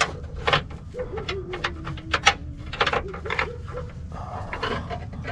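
Sharp clicks and rattles of wiring and plastic parts being handled behind a truck's headlight, as the bulb's wires are fished out to be plugged in. Through the middle a faint thin tone slowly falls in pitch.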